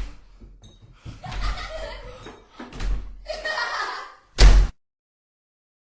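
Voice-like sounds in a horror 'mystery sound' clip, broken into short stretches, then a single sudden loud bang about four and a half seconds in, after which the sound cuts out completely.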